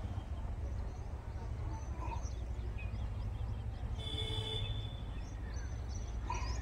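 Outdoor background noise: a steady low rumble with faint bird chirps scattered through it, and a brief higher tone about four seconds in.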